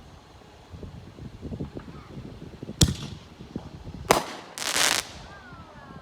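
Small 1-inch consumer artillery shells going off: a sharp bang about three seconds in, a second bang about a second later, then a brief burst of hissing crackle.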